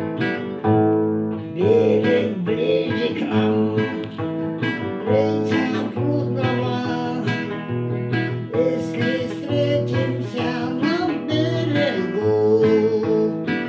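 Acoustic guitar strummed in chords, with a voice singing a melody over it from about two seconds in.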